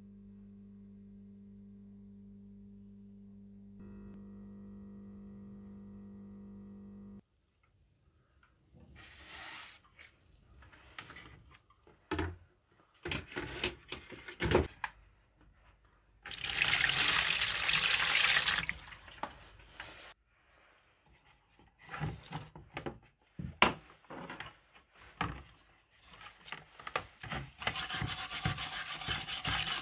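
Steady electrical hum from the charger powering an electrolysis bath, growing a little louder about four seconds in and cutting off suddenly about three seconds later. Then scattered water splashes and knocks, water running for about two seconds, and near the end a brush scrubbing loosened paint off a wet steel tin in a bowl of water.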